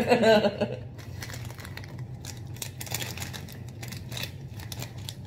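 Crinkled snack-chip bag rustling and crackling as it is handled close up, a dense run of sharp crinkles after about a second.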